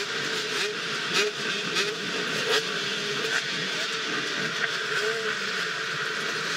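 Dirt bike engines running, their pitch rising and falling as the throttles open and close, over a steady hiss, with a few sharp knocks.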